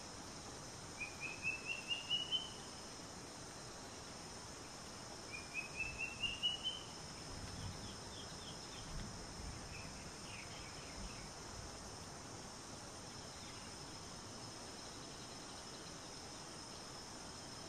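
Wild bush ambience: a steady high insect drone, over which a bird sings two quick phrases of about half a dozen rapidly repeated notes rising in pitch, each lasting a little over a second, in the first seven seconds, followed by fainter, softer calls.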